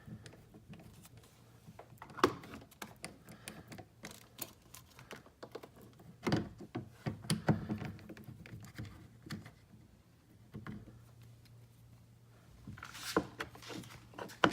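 Screwdriver and hands working screws out of a plastic truck door panel: scattered clicks and taps, a sharp click about two seconds in and small clusters of rattling handling later, over a faint low hum.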